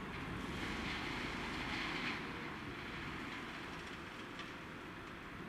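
Diesel train running at the station: a steady low rumble, with a stretch of hissing rail and wheel noise over the first two seconds.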